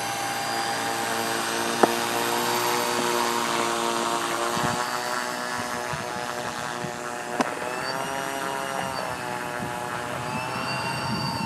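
Twin electric motors and counter-rotating propellers of a large RC model plane running as it taxis, a steady multi-tone whine whose pitch dips and rises a few times in the second half. A few brief sharp clicks sound over it.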